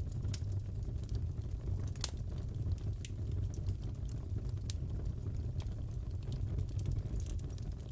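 Fireplace crackling: a steady low rumble of burning wood with irregular sharp pops and snaps, the loudest about two seconds in.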